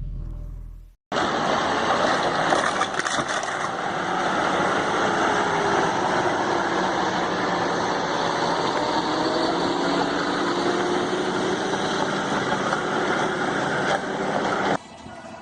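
Motor vehicle engine and road noise, steady and loud, with faint tones that slowly rise and fall in pitch; it starts about a second in and cuts off abruptly near the end.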